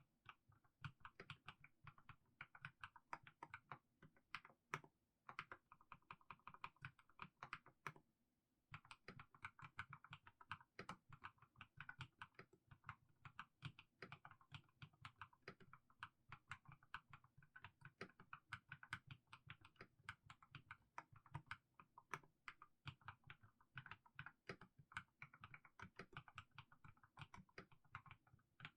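Mechanical keyboard fitted with fully lubed Haimu Sea Salt switches, typed on in a continuous run of keystrokes with a brief pause about eight seconds in.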